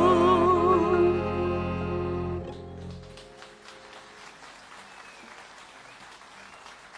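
A woman holds the last sung note of a Hungarian magyar nóta, with a wide vibrato, over the string band's closing chord. The music dies away about three seconds in, and faint scattered applause follows.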